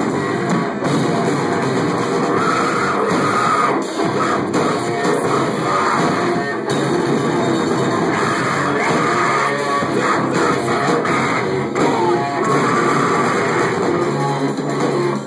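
Heavy metal band playing live, with guitars, loud and continuous.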